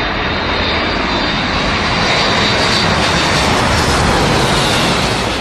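Large airliner's jet engines passing low overhead: a loud rushing noise with a high whine, swelling to its loudest about four seconds in, then starting to ease off.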